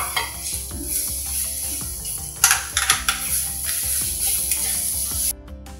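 Ground masala paste sizzling in hot oil in a metal kadai while a spatula stirs and scrapes it against the pan. The sizzle cuts off suddenly near the end.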